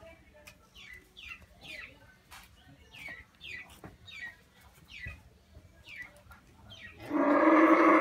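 Small birds chirping over and over, short high notes that slide downward about twice a second. About seven seconds in, a Holstein cow gives a loud, drawn-out moo that drops in pitch as it ends.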